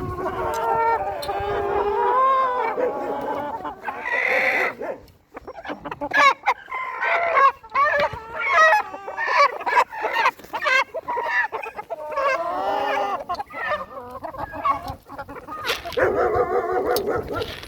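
Domestic chickens calling: hens clucking repeatedly, with a rooster crowing among them.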